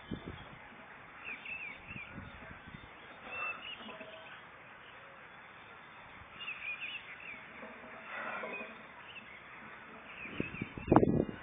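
Birds chirping in short scattered phrases over a quiet outdoor background. A louder burst of sound starts near the end.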